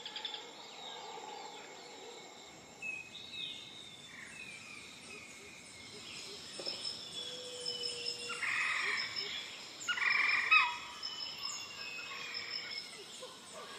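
Outdoor ambience of birds chirping and twittering over a steady high insect-like buzz, with louder bursts about eight and ten seconds in.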